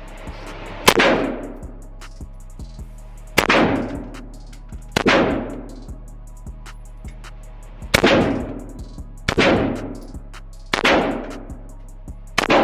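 11.5-inch BCM AR-15 pistol fired seven times in slow, uneven succession, about one and a half to three seconds apart. Each shot is a sharp crack followed by a long echo off the walls of an indoor range.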